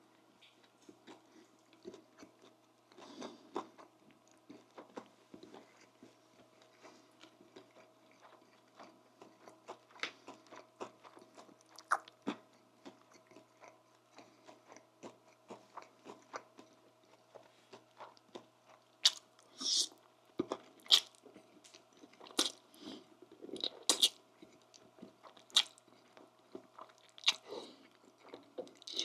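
Close-miked eating sounds: soft chewing and lip smacking with crisp crunchy bites. The bites become louder and sharper in the last third.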